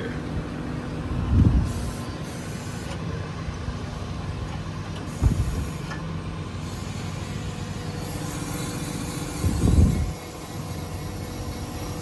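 6.7 Cummins diesel running steadily, powering the hydraulics of an Altec insulated aerial boom as the boom is worked through its stages. Three low thumps come about four seconds apart.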